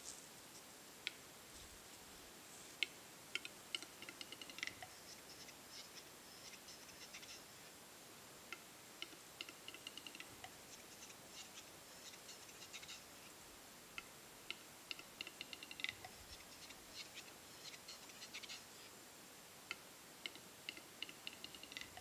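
Male capercaillie's display song at a lek: runs of dry clicks that speed up, each run ending in a louder pop followed by a faint scraping, repeated several times.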